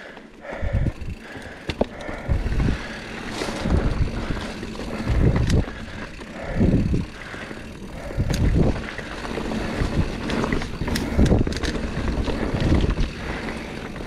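Mountain bike being ridden up a loose dirt climb: continuous tyre-on-dirt and rolling noise, with strong low rumbles coming back every second or two.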